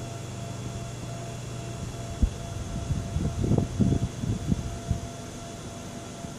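A steady low electrical hum cuts off with a sharp click about two seconds in. A couple of seconds of irregular low knocks and rustles follow, like hands handling equipment.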